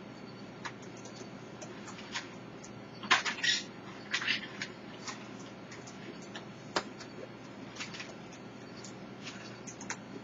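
Raccoons eating dry mini-chunk dog food: scattered crunches and clicks of kibble being chewed and pawed at in the dishes. A louder cluster of crunching and rattling comes about three to four and a half seconds in.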